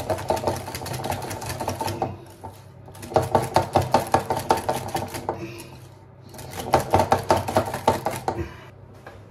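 Wire whisk beating praliné into thick crème pâtissière in a glass bowl, the wires clicking and scraping against the glass about five times a second. It comes in three spells of about two seconds, with short pauses between.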